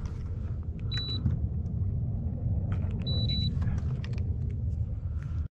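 Low, steady rumble of wind buffeting the microphone, with two short, high electronic beeps about two seconds apart and a few faint clicks.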